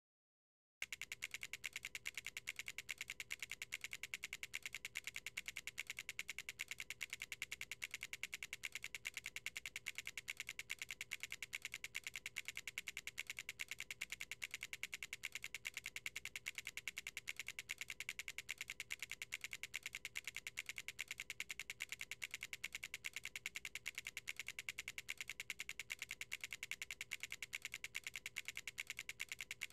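Plastic LEGO bricks clicking into place one after another, a rapid, steady stream of small sharp snaps several a second, beginning about a second in.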